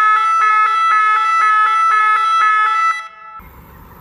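Automatic track-worker warning system sounding its electronic warning horn, a loud multi-tone signal warbling about four times a second, to warn workers that a train is approaching; it cuts off about three seconds in.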